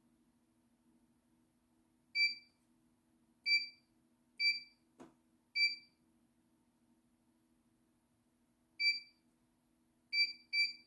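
Control panel of a CNY E900 computerized embroidery machine giving short, identical beeps as its buttons are pressed, seven in all at uneven intervals, the last two close together near the end. A single click comes about five seconds in, over a faint steady low hum.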